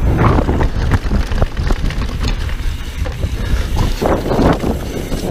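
Wind buffeting a bike-mounted camera's microphone while a downhill mountain bike runs fast down a dirt trail, with tyre and trail noise surging near the start and about four seconds in.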